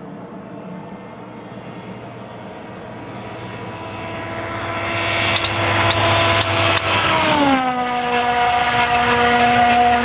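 A World Rally Car's turbocharged four-cylinder engine running hard at speed, growing louder as it approaches, with a few sharp cracks. Past the middle its note falls sharply and then holds lower and loud.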